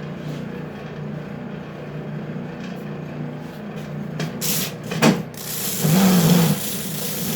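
Ridgid oscillating belt/spindle sander running with a steady hum. About four seconds in the noise builds, there is a sharp knock about five seconds in, and then a second or so of loud rasping as wood is worked against the sanding surface.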